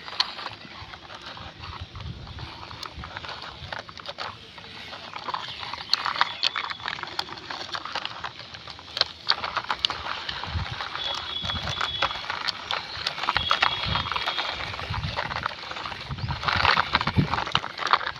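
Small toy tractor running after being switched on, its plastic gears and wheels clattering with many irregular clicks, louder near the end.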